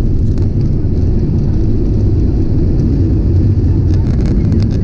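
Steady low rumble of a jet airliner's engines and cabin noise heard from a window seat while the plane rolls along the ground, with a few brief rattles about four seconds in.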